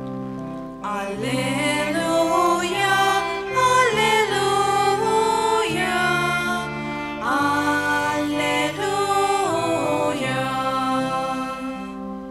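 Church singing of the Gospel acclamation with electronic keyboard accompaniment. The keyboard holds chords alone for about the first second, then the singing comes in over it, and both fade out at the very end.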